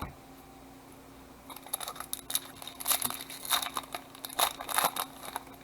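Plastic trading-card pack wrapper crinkling in the hands, a quick run of crackly rustles and small tearing sounds that begins about a second and a half in and stops shortly before the end.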